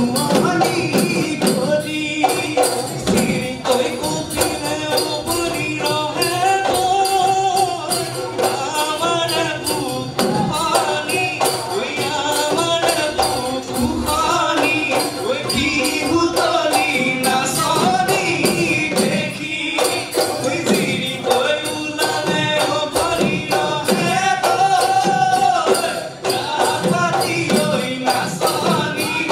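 Live Bihu folk music: dhol drums beating a fast, driving rhythm with jingling percussion and voices singing over it.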